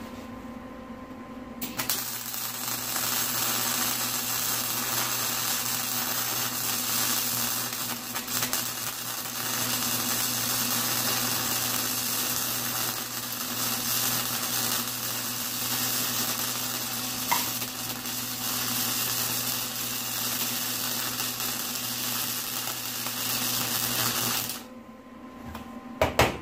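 MIG welder's arc crackling steadily while a bead is laid on steel, starting about two seconds in and stopping near the end, with a steady electrical hum underneath. A couple of sharp metal clicks follow just before the end.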